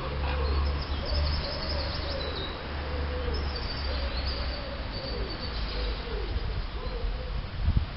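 A pigeon cooing over and over, a run of short, soft, low notes each rising and falling, with faint high birdsong above and a steady low rumble underneath.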